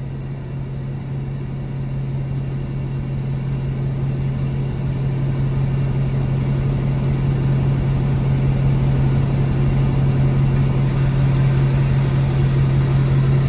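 Semi truck's diesel engine running, a steady low hum that grows gradually louder.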